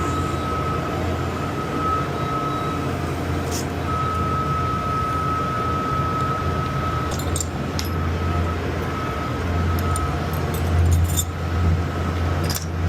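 Steady low rumble of a running steam boiler and its burner, with a thin high tone that comes and goes and a few light clinks.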